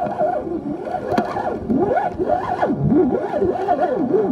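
Spinning reel being cranked while playing a carp, its gears giving a whine that rises and falls in pitch with each turn of the handle.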